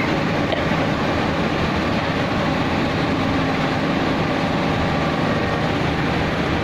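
Houfek Buldog 5 RC wide-belt sanding machine running steadily as a lacquered panel feeds through it: a loud, even machine noise with a constant low hum under it.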